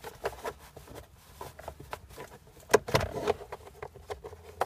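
Scattered plastic clicks and rubbing from a Hyundai Accent's glovebox as its side stopper is pressed in and the glovebox is eased back and down, with one sharper click a little under three seconds in.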